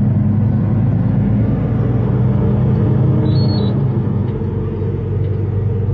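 Truck engine running steadily and road noise, heard from inside the cab while driving: a constant low hum.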